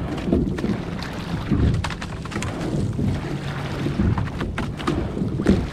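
Coastal rowing boat under way: low rumble of water and wind on the microphone, broken by irregular sharp knocks and splashes from the rowing.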